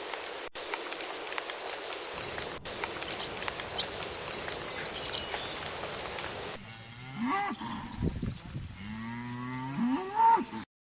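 Cattle mooing: several long, low moos that bend up and down in pitch, starting about two-thirds of the way in, after a steady hiss.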